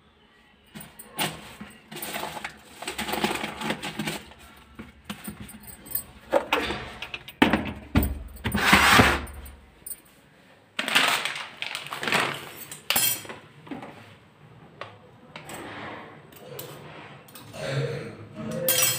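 Kitchen handling noises: irregular clinks, rattles and rustling as containers and packets of dry fruits are taken out and handled. A louder rustling bump comes about eight to nine seconds in.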